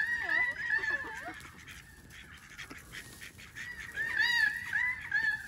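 A flock of white domestic ducks calling, a quick run of high calls at the start and another about four seconds in.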